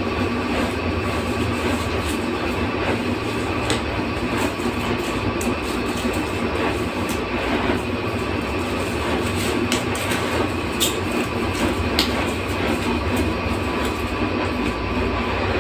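Steady mechanical rumble and hiss, unchanging throughout, with two faint steady tones over it and a few light clicks.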